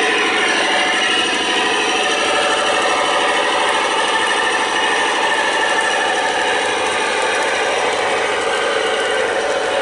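Two USA Trains NW2 model diesel locomotives running steadily with a freight train on garden railway track, a continuous mechanical running sound with rattling.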